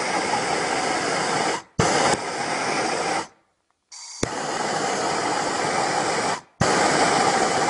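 MAPP gas blowtorch flame hissing steadily. The hiss cuts off abruptly and comes back several times, with a short silence about three seconds in.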